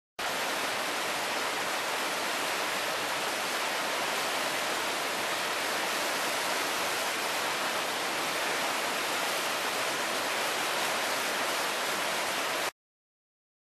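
River rushing over rapids in white water: a steady, even rush that cuts off suddenly near the end.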